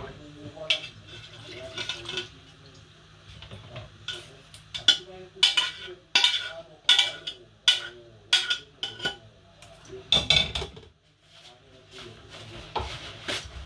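Metal cooking pots being handled and set down on a gas stove: a run of sharp metallic clinks and knocks with short ringing, thickest in the middle.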